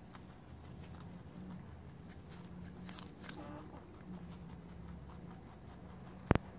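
Rabbits chewing and biting into raw radishes, with small crisp clicks of the bites. A single sharp knock near the end.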